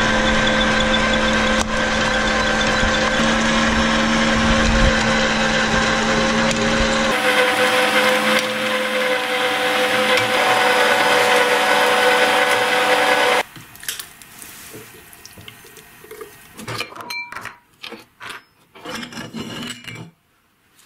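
Electric meat grinder's motor running steadily while grinding soft slime through the plate, its heavy low rumble dropping away about seven seconds in. It shuts off about two thirds of the way through, leaving scattered metal clicks and knocks as the grinder's parts are handled.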